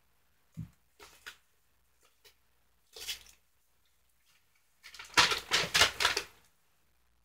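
Brown kraft paper sleeve around a shipped potted plant crinkling and rustling as it is handled, with a soft thump about half a second in and the loudest burst of rustling near the end.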